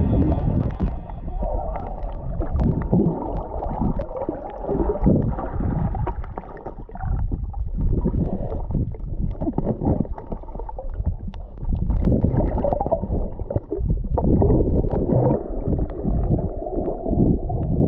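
Muffled, irregular underwater gurgling and sloshing of water, as heard by a camera in a waterproof housing while snorkelling.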